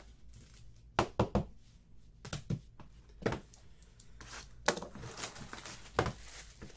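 Handling noise from small boxes and cards on a tabletop: a quick run of three sharp clicks about a second in, then scattered knocks and thumps with a stretch of rustling, as the boxes are picked up and set down.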